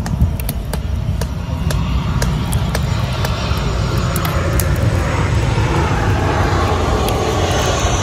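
Jet airliner passing low overhead, a rumbling roar that builds steadily from about a second and a half in. Light clicks of a metal utensil against a glass bowl as okonomiyaki batter is stirred.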